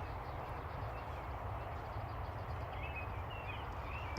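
Outdoor background: a steady low rumble with a few faint, brief bird chirps.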